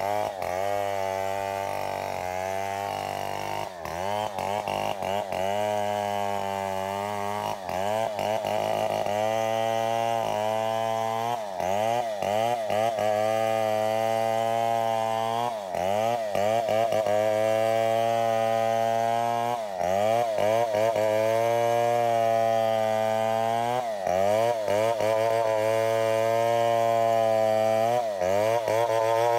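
Two-stroke chainsaw engine running unevenly: its speed sags and recovers about every four seconds, with brief stutters. This is the 'putol-putol' (cutting in and out) running that the owner is asking to have diagnosed.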